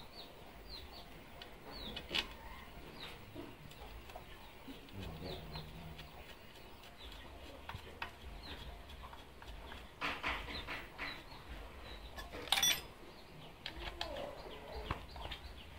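Light clicks and knocks of plastic and metal parts being handled as a grass trimmer's engine and clutch housing are fitted to its drive shaft and a bolt is threaded in, with one sharper click a little past the middle. Birds chirp and chickens cluck in the background throughout.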